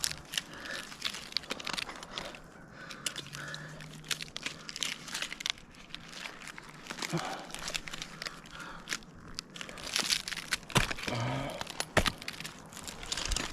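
Climbing spurs and lanyard scraping and crunching against pine bark as a climber works on the trunk, a run of short, irregular scrapes and clicks.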